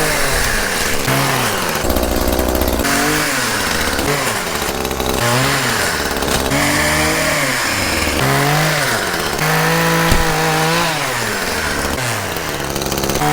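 Chainsaw revving up and dropping again and again, its pitch sagging under load as it cuts through branches. A single sharp knock comes about ten seconds in.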